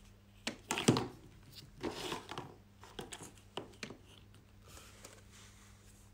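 Handling noise of a plastic sunscreen tube and its cardboard box on a wooden table: a run of knocks and rustles as the tube is picked up, turned and stood on the table, the loudest knock about a second in, dying away after about four seconds.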